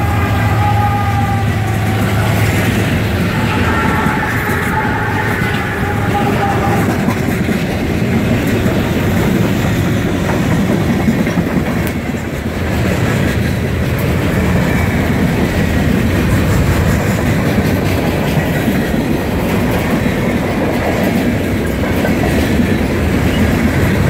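A CSX freight train passing close by: the diesel locomotives' engines hum at first, then a long string of freight cars rolls past with steady wheel noise and clickety-clack over the rail joints. A train horn's held chord fades away during the first several seconds.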